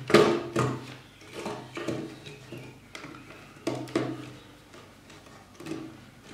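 Handling noise of a screwdriver and fingers working the terminals of a contactor in a plastic switch box: a series of irregular clicks and knocks, the loudest right at the start.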